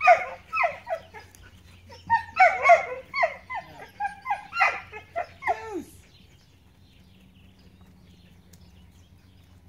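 Eight-week-old herding puppy yapping at sheep: a rapid run of short, high yips, each falling in pitch, about three a second, stopping about six seconds in.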